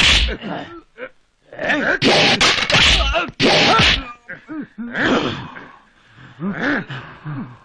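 Fight scene sound: men yelling and grunting with effort, mixed with whacks of wooden staves and heavy thuds. It is loudest from about two to four seconds in, then settles into a few quieter grunts.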